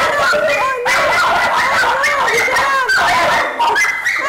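Several caged dogs barking and yapping over one another without a break.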